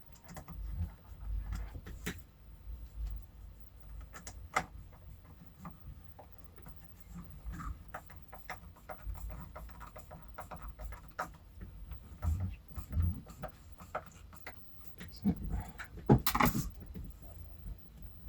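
Handling noise from hands working on a speaker cabinet: scattered light clicks and knocks over a low rumble, with a louder cluster of knocks near the end.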